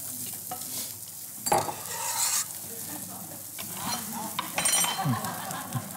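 A spoon stirring and scraping in a stainless steel pot, with food sizzling in a pan and a couple of utensil clatters.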